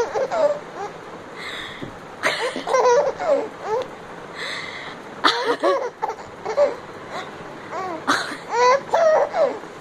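A baby laughing in several bursts of high-pitched belly laughs, with breathy pauses between them.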